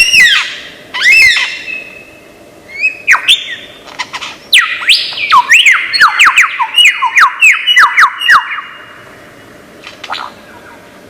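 Lyrebird singing a run of varied calls: a few arching whistled notes, then a fast series of downward-sweeping notes mixed with sharp clicks, which stops about eight and a half seconds in.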